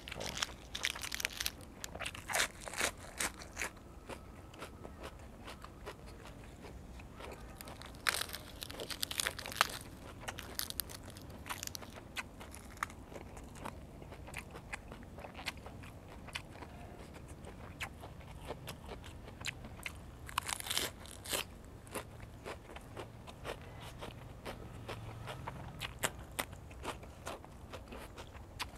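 Close-miked crunching and chewing of fresh raw vegetables such as lettuce, crisp bites coming in clusters near the start, about eight seconds in and about twenty seconds in, with quieter chewing between.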